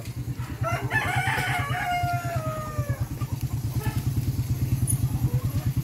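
A rooster crowing once, a single call of about two seconds starting just under a second in and falling in pitch at the end. An engine runs steadily underneath.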